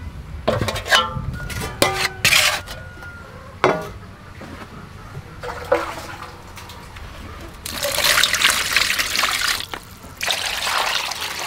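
Knocks and clinks of metal dishes, a few of them ringing briefly like a struck metal bowl. Then, from about eight seconds in, water pouring into the metal basin over a raw chicken, in two long pours with a short break between.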